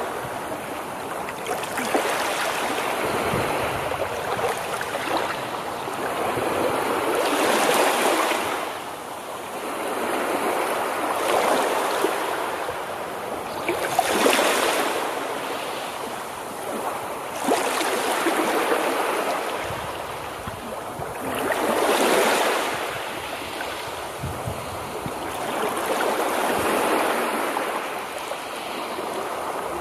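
Waves washing in and out: a rushing noise that swells and fades every three to four seconds.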